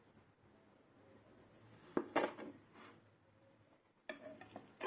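Mostly quiet, with a few short scrapes and taps about two seconds in and again near the end: a knife cutting and scraping kinetic sand.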